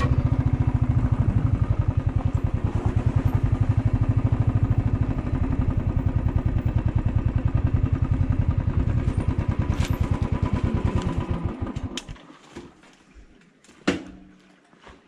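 Motorcycle engine running with an even, rapid putter, then switched off about twelve seconds in. A single sharp knock follows near the end.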